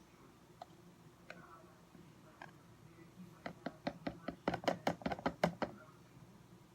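A few scattered clicks, then a quick run of about fifteen sharp taps on a hard object over two seconds, loudest just before they stop.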